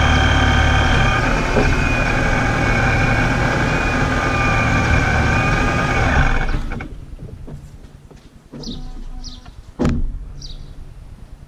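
Supercharged engine running in gear with a loud whine of several steady pitches over the engine rumble, which the owner asks may be a bad supercharger bearing. The whine and engine cut off sharply about two-thirds of the way through, leaving a few short high chirps and one sharp knock.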